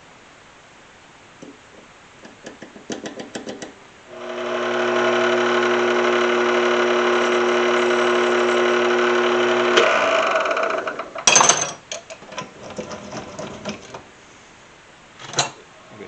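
Mini lathe motor starting, running at a steady pitch with a whine for about six seconds, then winding down. A few quick clicks come before it, and a sharp metal clank follows a second after it stops.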